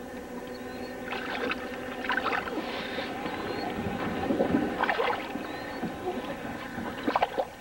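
A boat's motor humming steadily, with short splashing and knocking noises as a crappie is landed.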